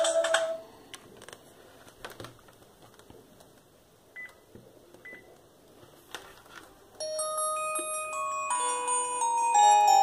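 NEC e616V phone's built-in polyphonic ringtone: a bell-like mallet melody starts about seven seconds in. Before it, the previous ringtone cuts off just after the start, followed by a quiet pause with a few handling clicks and two short high beeps.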